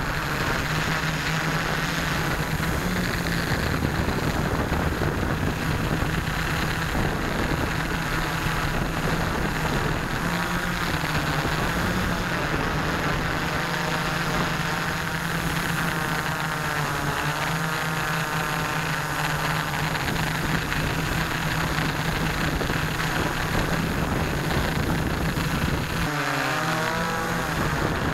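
Model airplane's motor and propeller running steadily in flight, heard from the plane's onboard camera, with wind rushing over the microphone. The drone of the propeller holds one even pitch, with brief pitch glides near the end.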